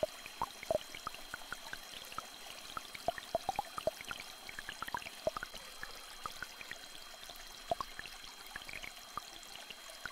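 Small stream trickling, with frequent short water plinks and drips scattered irregularly through it. Two steady high tones are held underneath.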